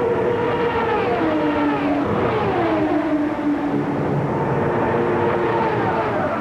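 Race cars passing at speed, the engine note dropping sharply in pitch as each goes by, about three passes.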